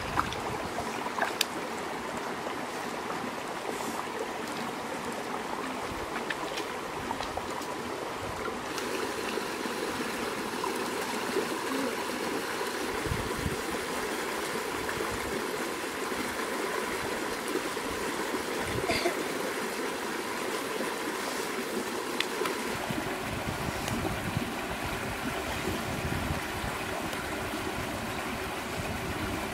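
Shallow river water running steadily over stones, with a few faint clicks.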